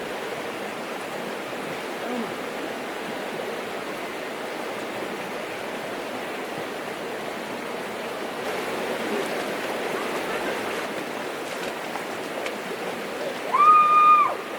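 River water rushing steadily. Near the end a loud, high, held cry breaks in for about a second.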